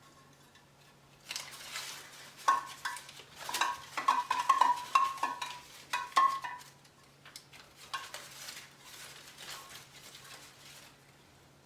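Christmas tree ornaments clinking and knocking together as they are handled: a run of light clinks with a short ring, then softer rustling.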